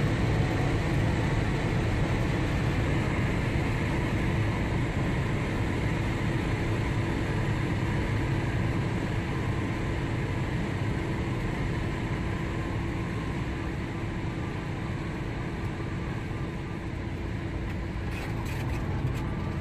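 Cessna 172SP's four-cylinder Lycoming engine and propeller running steadily, heard inside the cabin during the landing, slowly getting quieter. A few faint clicks near the end.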